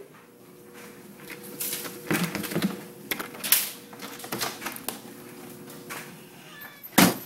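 Clatter of household objects being handled: irregular clicks and knocks, ending in one loud knock near the end, over a faint steady hum.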